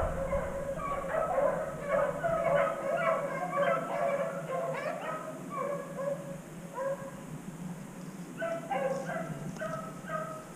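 A pack of beagles baying as they run a cottontail rabbit's track, the sign that they are on the scent. Many voices overlap at first, then thin out to fewer separate bays repeated a few times a second.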